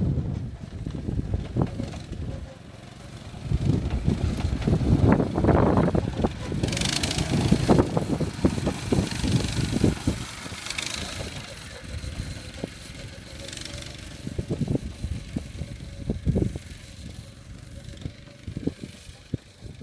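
A wheeled cart loaded with buckets rattling and clunking as it is pushed over rough dirt, in irregular knocks, with wind hiss on the microphone in the middle.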